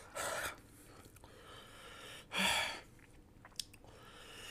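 Two short, breathy exhalations through an open mouth, about two seconds apart: a person blowing air to cool a mouth burnt by hot chilli chips.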